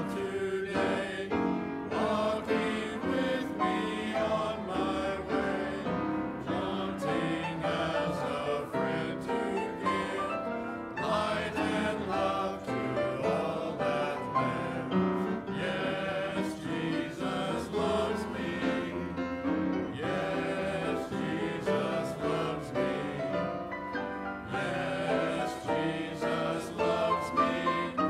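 A church congregation singing a hymn together.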